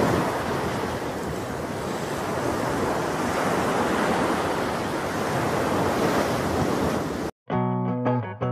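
A steady rushing noise, like surf, that cuts off suddenly about seven seconds in; plucked guitar music starts right after.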